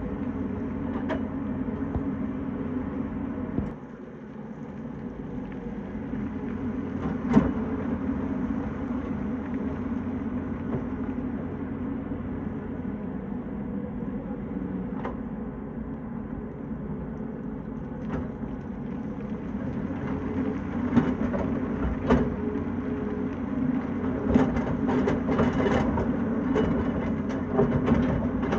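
Tata Hitachi hydraulic excavator's diesel engine running steadily, with scattered sharp knocks and clatter that come thicker in the last several seconds. The sound briefly drops in level about four seconds in.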